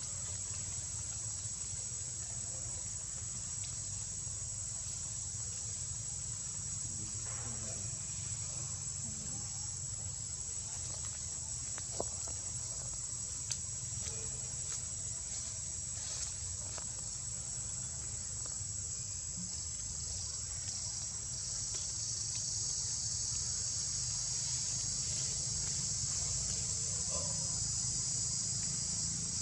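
A steady, high-pitched chorus of insects that grows louder about two-thirds of the way through, over a low rumble, with a few faint clicks.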